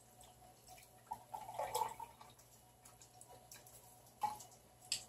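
Orange juice poured into a glass measuring cup: a faint, brief trickle and splash about a second in, followed by a couple of light clicks.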